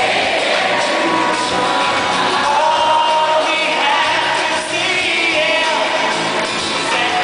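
Live pop-rock concert music played loud by a full band, with a male lead singer, heard from the audience in a large, echoing arena.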